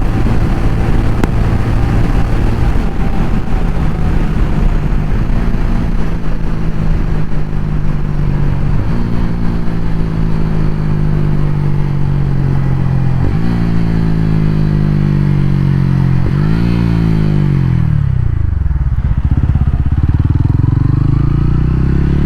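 TVS Ronin 225's single-cylinder engine pulling on the road, its note climbing and dropping back three times as the rider shifts up through the gears. Near the end the revs fall away sharply and the engine settles to a low, steady beat as the bike slows.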